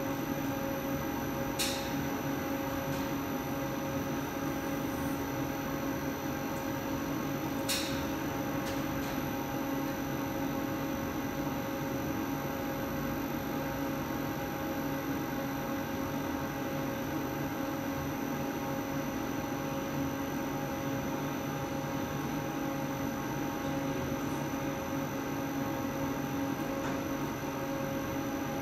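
Plastics extruder running steadily while a strand of TPE compound comes out of its die: an even machine hum with several steady tones over a noisy haze, broken by two brief ticks about 2 and 8 seconds in.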